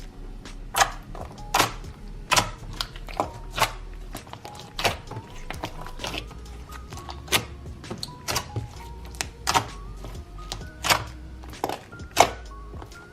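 Background music with a steady beat: a sharp percussive hit about every 0.8 seconds under a light melody.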